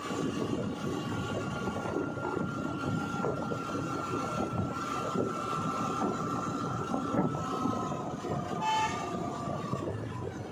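Road and engine noise from a vehicle driving along a highway, with a long steady high-pitched whine through most of it that fades just before the end, and a brief beep about three-quarters of the way through.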